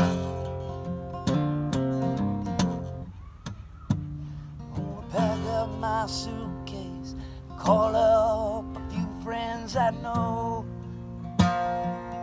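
Acoustic guitar played as a song accompaniment, with chords and notes picked in a steady rhythm. A wordless vocal line with vibrato comes in about five seconds in and again from about eight to ten seconds.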